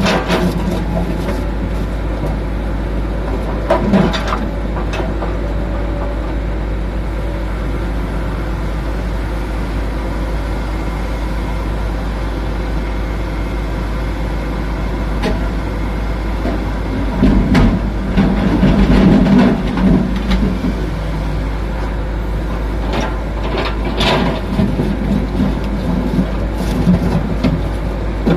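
Komatsu PC200-7 excavator's diesel engine running under load as it digs and loads, growing louder for a few seconds about two-thirds of the way through. A few sharp knocks stand out, one a few seconds in, one about halfway and one near the end.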